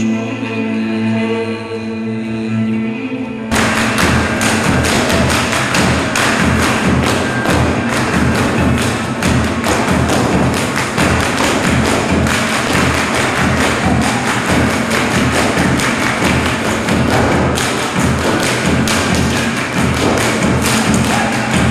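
A held sung chord that breaks off about three and a half seconds in, when folk dancers' boots start stamping and slapping on the stage floor in a fast, steady rhythm of thuds.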